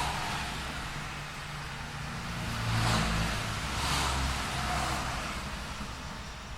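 City street traffic: a steady low rumble of engines, with two vehicles passing close, about three and four seconds in.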